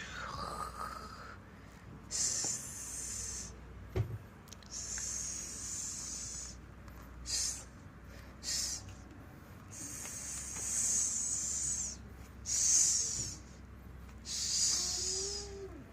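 A cat hissing in repeated bursts, some short and some over a second long, with a short pitched cry near the end.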